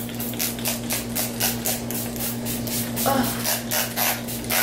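Smashbox So Chill coconut primer water's pump spray bottle spritzed over and over at the face, about four short sprays a second, to set makeup. A low steady hum lies underneath.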